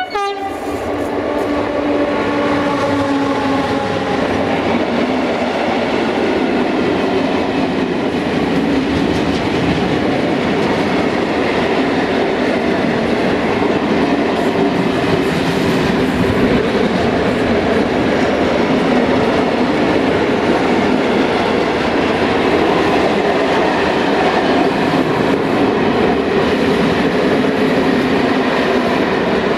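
Freight train of tank wagons rolling past close by: a loud, steady rumble and clatter of steel wheels on the rails. A few tones fall in pitch over the first few seconds.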